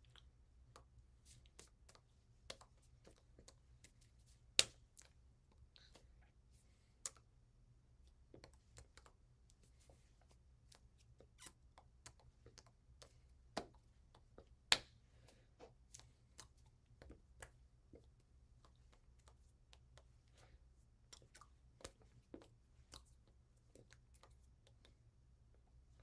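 Faint, irregular clicks and taps from a person signing, with two sharper clicks about four and a half and fifteen seconds in, over a low steady hum.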